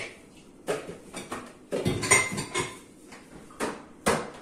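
Kitchenware being handled: a series of sharp knocks and clinks, with a dense, loudest cluster of clattering about two seconds in and single knocks near the end.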